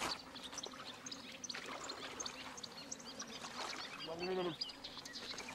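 Lakeshore ambience: small birds chirping on and off and water trickling and lapping over shingle, with one short animal call falling in pitch about four seconds in.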